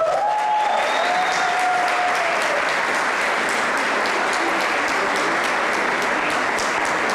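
Audience applauding steadily, with one voice calling out over the clapping in the first couple of seconds.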